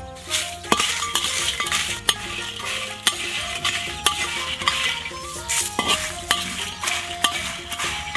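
A metal wok spatula scraping and clanking against an iron wok as dried red chilies and whole spices are stir-fried, with sizzling underneath. Sharp clanks come about once a second.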